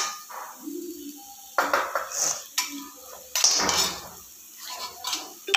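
Metal spoon stirring and scraping a thick gram-flour (besan) dough in a metal pan, with irregular scrapes and light knocks of the spoon against the pan.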